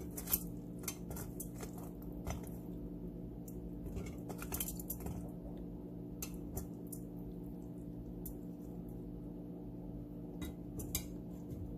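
Metal spatula clinking and scraping against a glass baking dish while fried bread is pressed into sugar syrup, a scatter of light clicks with a few soft squishes. A steady low hum runs underneath.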